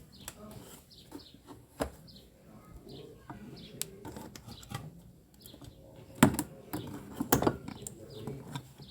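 Scattered clicks and knocks of parts being handled on a tanquinho washing machine while its drive belt is taken off, the loudest about six and seven seconds in. A bird chirps repeatedly in the background, short falling chirps.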